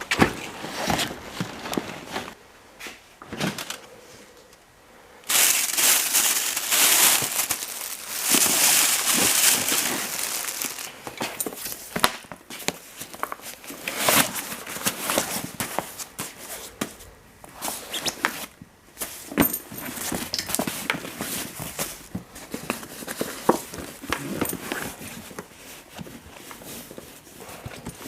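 Rustling and crinkling, as of plastic or fabric being handled, with many scattered clicks and knocks. The rustling grows loud and dense about five seconds in and eases off some six seconds later.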